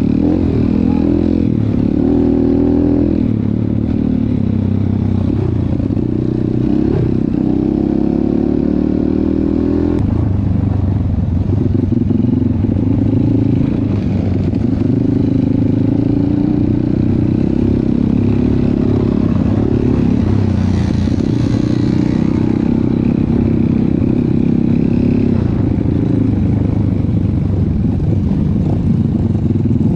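Off-road trail motorcycle engine running under load, its note rising and falling with the throttle, with an abrupt change in the engine note about ten seconds in.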